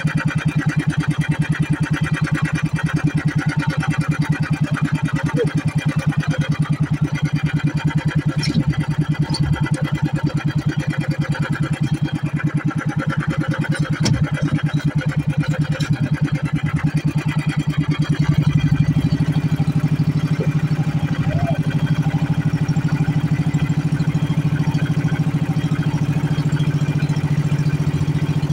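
Motor-driven outrigger boat's engine running steadily under way, a fast even chug. About two-thirds of the way in it becomes slightly louder.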